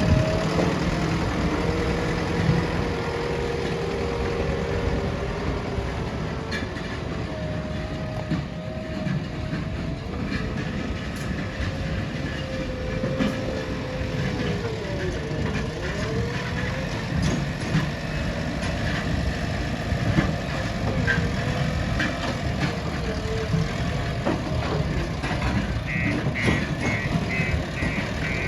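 JCB 3DX backhoe loader's diesel engine running under load with a low rumble, its pitch wavering as the revs and hydraulics change, dipping and rising about halfway through. A quick run of high-pitched beeps comes in near the end.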